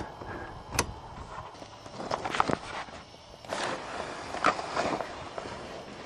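Clicks, scrapes and rattles of a homemade dash-mounted choke control and its linkage being pulled and pushed by hand. There is one sharp click near the start, then rattling clicks in three spells about a second apart.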